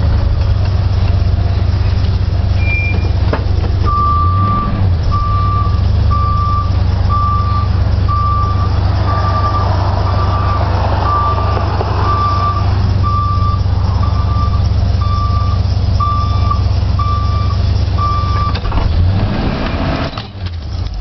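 Ford van's engine running, with a single-pitched electronic beep repeating about once a second for roughly fifteen seconds. The engine stops near the end.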